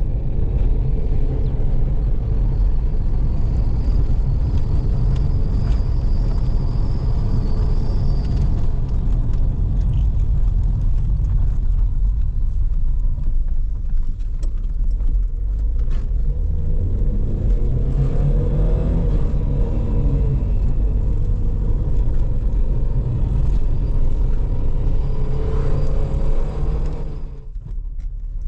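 A car on the move: a steady low rumble of engine and road noise, with the engine pitch rising and falling for a couple of seconds past the middle. The level drops briefly near the end.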